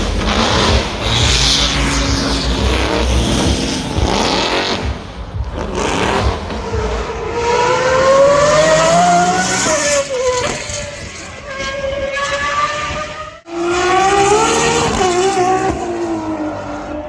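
Racing car engines at high revs, rising and falling in pitch through gear changes. A rough, crackling engine sound opens, and the sound breaks off abruptly about thirteen seconds in before another car comes in.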